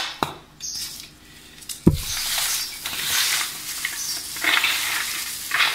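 Hands rubbing dry garlic cloves together in a steel platter, the papery skins rustling as they loosen. The rubbing starts about two seconds in, right after a single thump.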